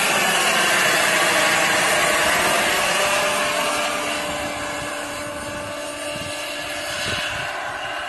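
Radio-controlled scale model helicopter flying overhead: a steady rotor and motor whine with a held tone. It grows fainter from about halfway through as it flies away.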